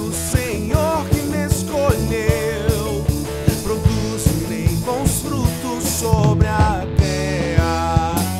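Rock band playing live: a male lead vocalist sings over electric bass, electric guitar, keyboard and a drum kit with a steady beat and cymbal crashes.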